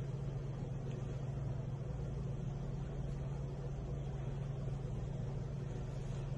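A steady low hum over a soft rushing noise, with no distinct events.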